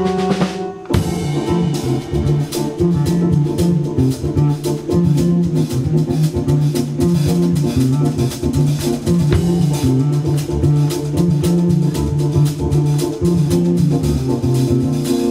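Live instrumental band jam: electric bass guitar playing a repeating line over a Pearl drum kit keeping time, with keyboard. The band drops out briefly about a second in, then comes back in together.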